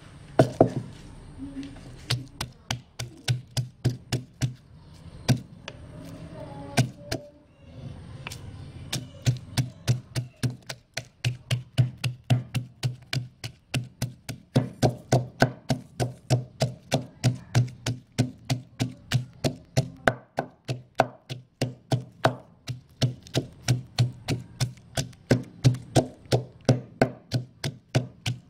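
Wooden pestle pounding grilled chillies, garlic and fresh shrimp in a mortar, in steady strokes of about two a second, a few scattered blows at first, then a regular rhythm from about two seconds in.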